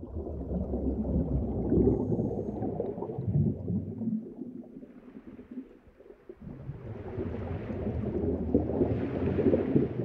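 A low rumbling ambient soundscape that swells, fades about halfway through, then builds again with a faint hiss above it.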